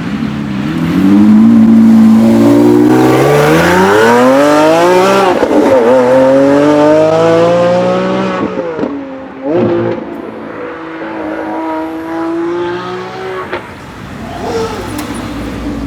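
A high-performance car accelerating hard. Engine pitch climbs, drops at an upshift about five seconds in, climbs again, then drops at a second shift about eight and a half seconds in, after which the engine is quieter.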